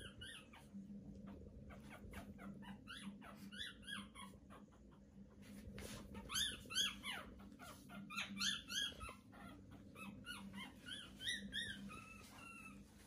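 Pomeranians whimpering: many short, high squeaks that come in quick runs, the loudest run in the middle.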